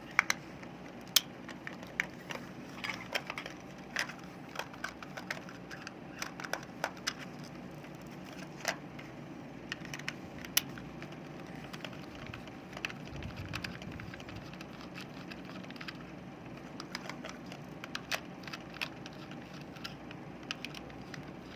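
Irregular small clicks and taps of plastic and metal parts being handled as a rechargeable LED flashlight is taken apart, some sharper than others, over a steady low hum.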